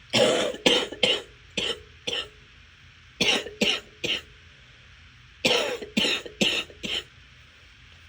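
A person coughing in three fits of rapid, harsh coughs: about five, then three, then five coughs, with short pauses between the fits.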